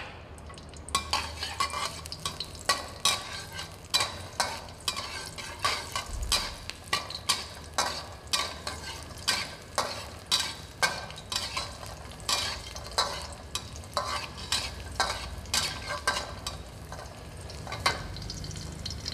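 Garlic sizzling in hot cooking oil in a wok while a metal wok spatula scrapes and knocks against the pan, about two strokes a second, starting about a second in: garlic being stir-fried until fragrant.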